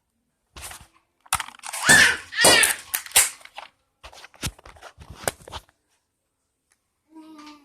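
BB gun firing: a cluster of sharp cracks and clattering over about five seconds, with a short pitched sound near the end.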